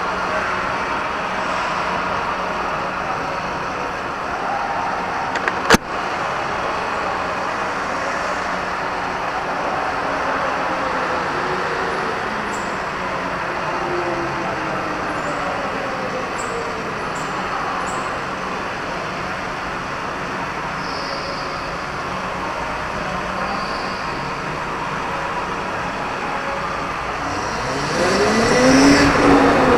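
Onboard sound of an electric go-kart running hard on an indoor track: a steady rush of motor and tyre noise, with a whine that rises and falls as it speeds up and slows for corners. A single sharp knock about six seconds in, and the noise grows louder near the end with the whine sweeping up and down.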